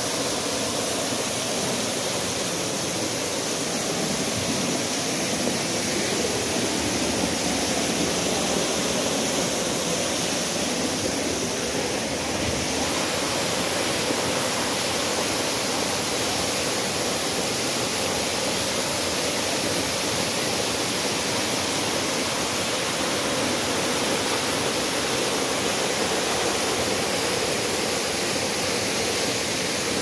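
Waterfall heard from right beside its falling curtain: a steady rush of water pouring down onto rock.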